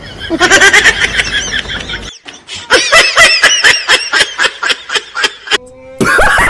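Loud laughter in rapid, repeated bursts of about three or four a second, with a short break about two seconds in; a man's hearty laugh starts up again near the end.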